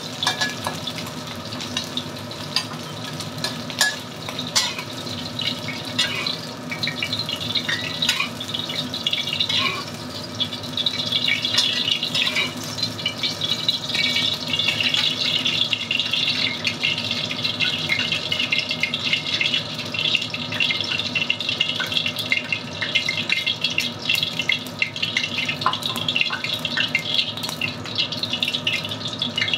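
Diced chicken sizzling in oil in a steel wok, with a steady fine crackle throughout, while a metal spatula and strainer are worked through the pieces with small clicks and scrapes.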